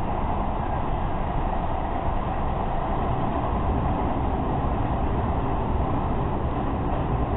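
Seibu 20000 series electric train running at speed, heard from inside the passenger car: a steady, mostly low running noise of wheels on rail and the moving car.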